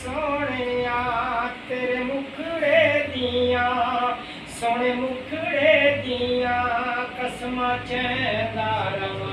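A man chanting a slow, melodic religious recitation in long phrases with held, wavering notes and brief pauses for breath.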